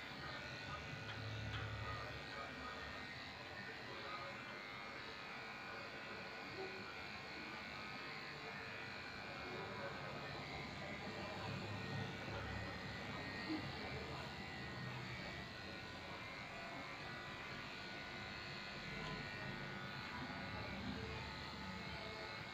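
Corded electric dog-grooming clippers buzzing steadily while shaving a shih tzu's coat.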